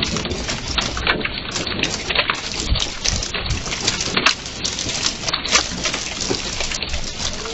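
Hailstorm: quarter-sized hailstones clattering on a wooden porch deck and railing, with many scattered sharp hits over a steady hiss of rain.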